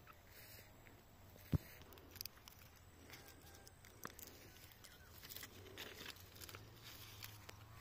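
Faint rustling and crackling of hazel leaves and twigs being handled, with a few sharp knocks, the loudest about a second and a half in.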